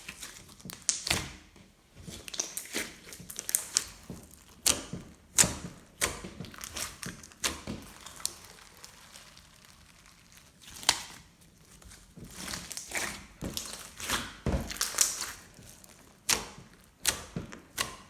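Hands squeezing and stretching glossy slime, making irregular sticky clicks and crackling pops.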